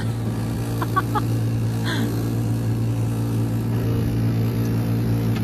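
A car's engine idling with a steady, unchanging hum, heard from inside the cabin, with faint brief sounds about one and two seconds in.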